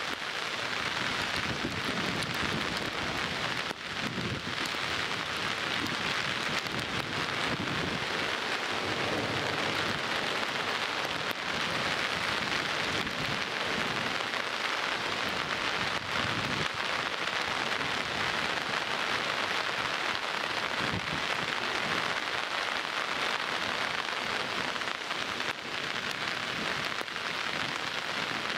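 Heavy downpour: rain falling hard and steadily, a dense even hiss.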